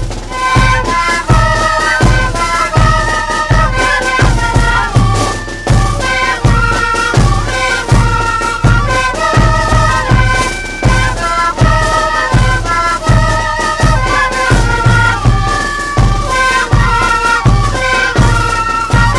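Andean folk wind-band music: a reedy wind melody played in parallel lines over a bass drum beating about twice a second.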